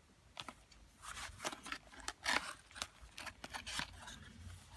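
A small cardboard box being opened and handled, with a quick run of light scrapes, clicks and rustles from the cardboard and the packaging inside, starting about a second in.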